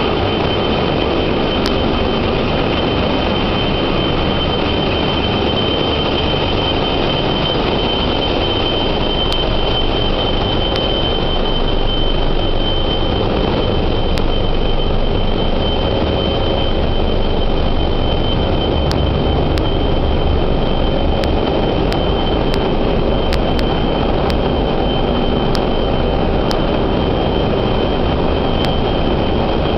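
Loud, steady din of a ship's engine room, with the diesel engines and auxiliary machinery running together and a steady high whine over the rumble.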